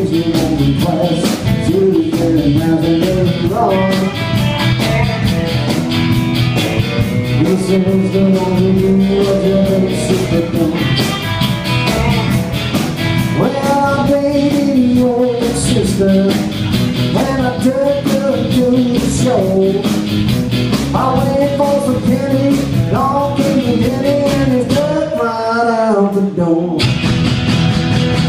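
Live rock and roll band playing: a man singing lead over strummed acoustic guitar, electric guitar and drums.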